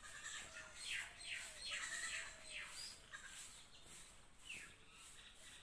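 Birdsong: a bird repeats short, quick falling whistled notes, about two a second through the first half, then calls again once near the end.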